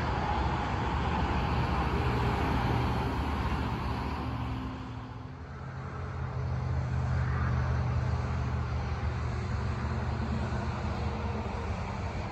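Distant engine running with a steady low hum over a hiss of outdoor noise; it dips briefly about five seconds in, then comes back.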